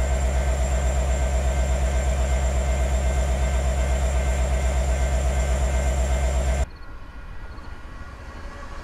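Diesel-electric locomotive's engine running steadily close by, a deep rumble with a fast, even throb. About two-thirds of the way through it cuts off abruptly to the much quieter sound of a distant freight train approaching.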